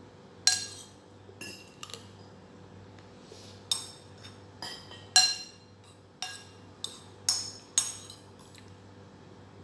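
A metal spoon clinking against a bowl as food is scooped up and eaten: about a dozen sharp, ringing clinks at irregular intervals.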